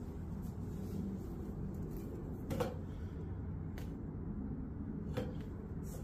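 Three short knocks and clinks, the loudest about two and a half seconds in, as an exhaust downpipe is handled and fitted under a motorcycle's engine, over a steady low background rumble.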